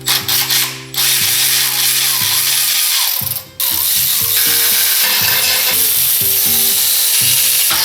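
A ratchet working bolts on the truck's transmission: a quick run of clicks in the first second, then a loud continuous rattling run that stops briefly about three seconds in and starts again. Background music plays under it.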